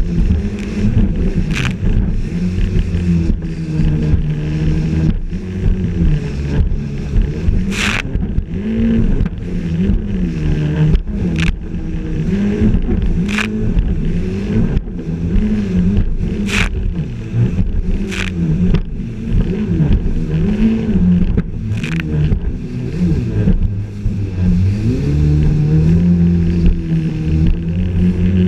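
Yamaha jet ski engine running hard at speed, its pitch rising and falling again and again as the throttle and the craft's load change over the waves, with rushing water and spray. Several sharp slaps come at irregular intervals as the hull hits the chop.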